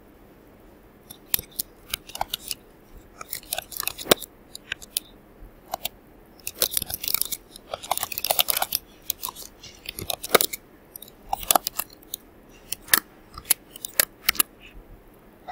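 Typing on a computer keyboard: irregular runs of quick key clicks, with short pauses between words.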